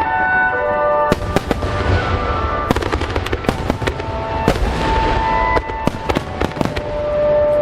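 Aerial fireworks going off in quick succession, sharp bangs several times a second with crackling between them, over music with long held notes.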